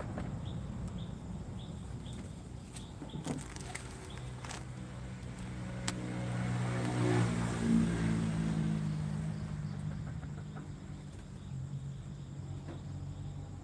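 A motor vehicle's engine passes by, growing louder around the middle and then fading as its pitch drops. A few light knocks come early on.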